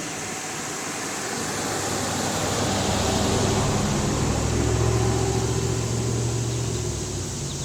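A low, steady engine hum that swells over a couple of seconds, holds, then fades out near the end, over a steady hiss.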